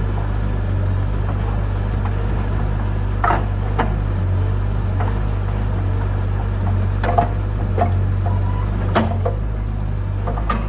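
Bobcat 753 skid steer's engine running steadily while its log splitter works through hard gum wood, with about seven sharp cracks and knocks of the wood splitting and breaking apart.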